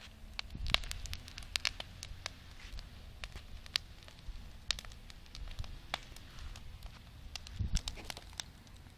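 Campfire crackling, with irregular sharp pops and snaps over a low steady rumble.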